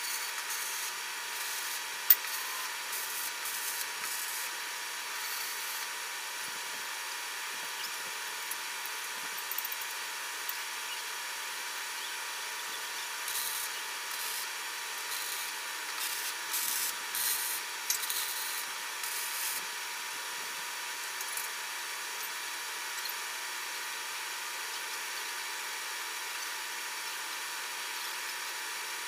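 Short bursts of MIG-welding arc crackle from tack welds on a steel tube frame, several of them in the middle stretch, over a steady background hiss, with one sharp metal knock early on.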